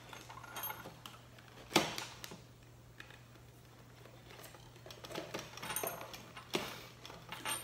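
Light clicks and taps of small lamp parts being handled and fitted together by hand, with one sharper knock about two seconds in and a cluster of small clicks near the end, over a faint steady hum.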